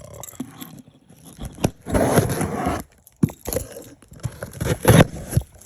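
Packaging being handled by hand: crinkling and scraping, with sharp clicks and knocks and a longer rustle about two seconds in.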